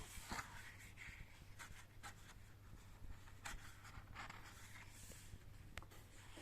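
Faint paper rustling and soft handling as the pages of a collector's mediabook are turned, with a few light scrapes and a small click.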